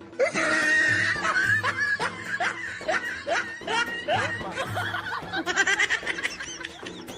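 Laughter, a run of short rising chuckles about two a second that turns higher-pitched near the end, over background music with a steady low beat.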